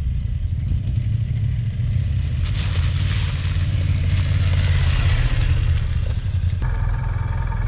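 Adventure motorcycles riding along a dirt track: a steady low engine rumble, with a hiss that swells in the middle as a bike passes close. Near the end the sound changes abruptly to a steadier engine drone with a humming tone.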